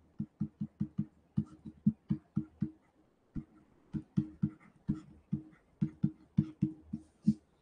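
Stylus tapping and stroking on a pen tablet while handwriting: a quick run of short knocks, about four or five a second, with a brief pause about three seconds in.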